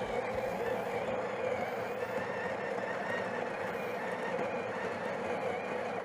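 Breville Barista Touch's built-in conical burr grinder running steadily, grinding espresso beans into the portafilter for a timed dose. It stops abruptly at the very end as the grind timer reaches zero.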